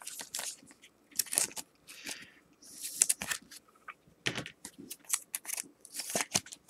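Cardboard trading cards being handled and flipped through by hand: irregular quick flicks and swishes of card sliding against card, along with a clear plastic card sleeve.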